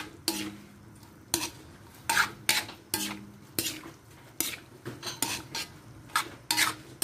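Metal spatula clanking and scraping against a metal wok while noodles and cabbage are stir-fried and tossed, in irregular strokes about two a second. Some strikes leave the pan ringing briefly.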